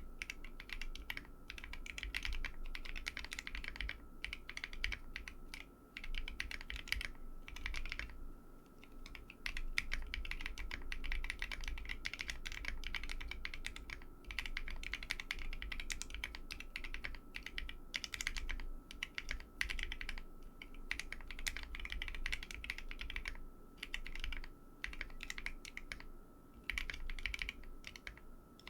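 Typing on a Bakeneko 60 mechanical keyboard with lubed Tecsee Coral tactile switches, an FR4 plate and Cherry-profile dye-sublimated PBT keycaps: a fast, continuous run of key clacks with short pauses, the longest about eight seconds in.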